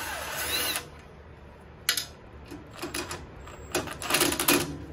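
Ratchet wrench clicking in several short runs as the bolts holding the carburettor and intake to a small Briggs & Stratton engine are backed out.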